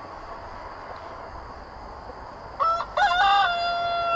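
A rooster crowing once, starting about two and a half seconds in: a short opening note, then a long held call that steps down in pitch partway through.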